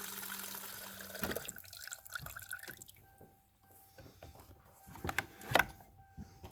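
Fuel pouring from a hose into a container during an electric fuel pump flow test, with the pump's steady hum. About a second in the flow stops with a click, leaving scattered drips and small knocks.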